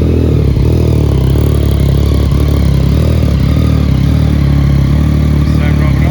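Yamaha MT-09's three-cylinder engine idling steadily through a de-cat exhaust.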